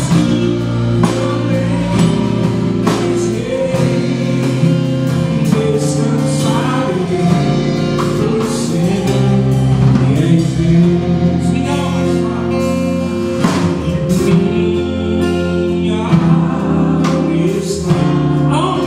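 Live gospel worship music: a man singing lead into a microphone, accompanied by his own acoustic guitar and a band with electric guitars and drums.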